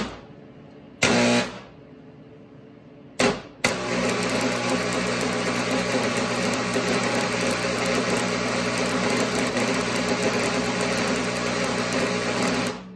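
Stick welder arc on steel: three short bursts as the arc is struck, then a continuous crackling weld run over a steady low hum for about nine seconds, cutting off sharply near the end when the arc is broken.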